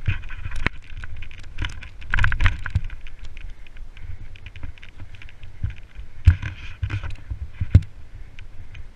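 Mountain bike descending a rough dirt trail at speed, heard close up from the rider's action camera: a constant rumble of tyres and wind with the bike rattling and clattering over ruts and roots, and sharp knocks from hard hits, the loudest a little past six seconds in and near eight seconds in.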